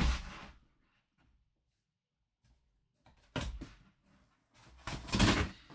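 A cardboard shipping box set down on a desk with a thump, then, after a pause of a few seconds, its flaps opened and the cardboard packaging inside rustled and slid, in two bursts.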